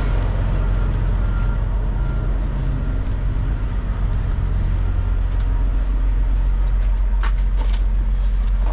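Diesel truck engine idling steadily, a low even hum, with a few sharp clicks near the end.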